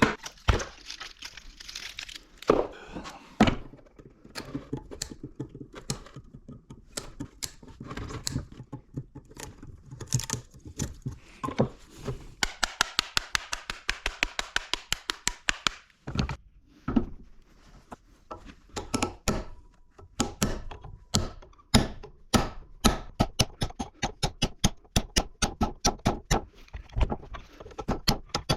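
Hammer striking repeatedly, knocking copper windings out of a small electric motor, in quick regular blows of about three to four a second through the second half. A few seconds of scraping noise come in around the middle.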